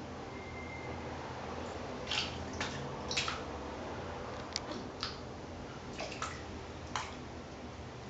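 A sphynx cat's paws splashing in shallow water in a plastic basin as it climbs in and wades, in about eight short separate splashes starting about two seconds in.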